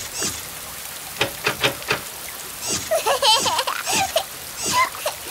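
Rain pouring steadily through holes in a roof, with single drips plinking down into the room. Around the middle a baby giggles and babbles in short bursts.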